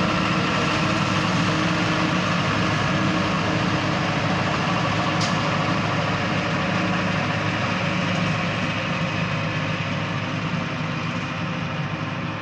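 City leaf-collection truck and its tow-behind leaf vacuum running steadily with a heavy engine hum and blower noise, growing a little fainter over the last few seconds as they move away.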